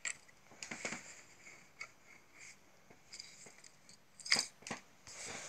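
Plastic Lego pieces clicking and rubbing as the robot's movable parts are worked by hand: scattered light clicks and scrapes, the loudest pair a little after four seconds in.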